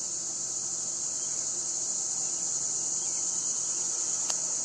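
Steady, high-pitched chorus of insects such as crickets, unbroken throughout, with a single sharp click near the end.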